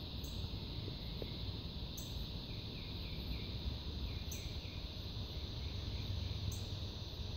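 Night insect chorus of crickets: a steady high trill, with a sharper, higher call repeating about every two seconds. A low steady rumble runs underneath, and a brief run of faint chirps comes about three seconds in.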